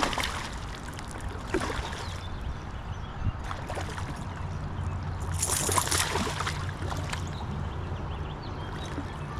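Water splashing and sloshing in several short bursts, the strongest a little past the middle, over a steady low rumble of flowing water.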